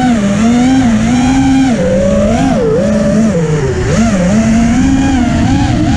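FPV racing quadcopter's motors and propellers whining, the pitch rising and falling constantly with the throttle as it chases a motorcycle.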